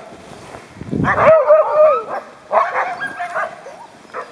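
Sled dogs whining and yipping in high, wavering cries, in a bout about a second in and another around two and a half seconds in. A brief low rumble comes just before the first bout.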